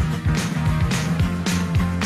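Loud rock music with guitar and a steady drum beat over a heavy bass line.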